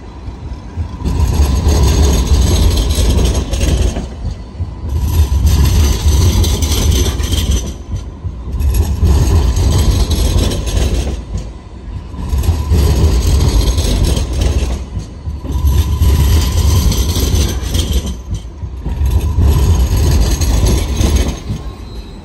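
Alstom Citadis X05 light rail tram passing close by. Its running noise swells and fades in waves every three to four seconds as the cars go past, over a faint steady high tone.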